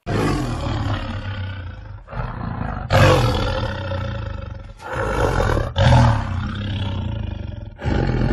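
Tiger roaring again and again, a string of rough calls of one to two seconds each with short breaks between them.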